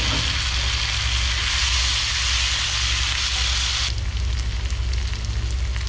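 Chopped tomato and green chillies sizzling in hot butter and onion in a frying pan, a dense steady hiss. About four seconds in the hiss drops suddenly to a quieter sizzle with scattered crackling pops. A steady low hum runs underneath.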